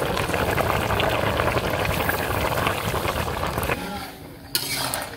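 Fish curry boiling hard in a large iron karahi, a dense crackly bubbling that drops off sharply about four seconds in, followed by a brief scrape of a spatula being stirred through the pan.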